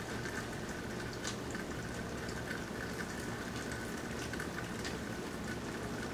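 Steady rain falling with no wind, over the constant hum of air-conditioning units running, with a few sharper drops ticking through it.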